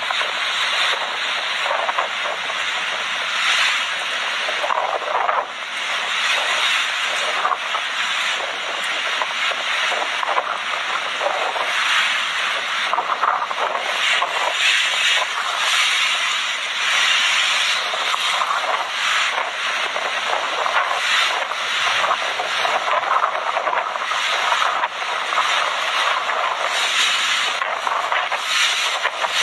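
Typhoon wind and heavy rain, a continuous rushing roar that surges and eases in gusts every second or two.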